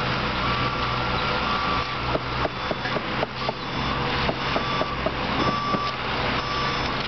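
A heavy truck's engine running at a construction site while its reversing alarm beeps steadily, about once a second. A series of short knocks or clatters comes through in the middle.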